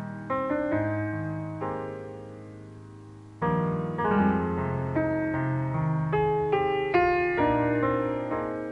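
Slow solo piano playing chords and single notes, each left to ring and fade, with a fresh, louder phrase starting about three and a half seconds in. This is the introduction to a worship song.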